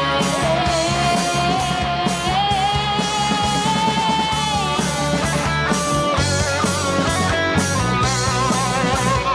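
Rock band playing an instrumental break: a lead guitar holds a long note that bends up in pitch, then plays wavering notes with vibrato, over rhythm guitar, bass and a steady drum beat.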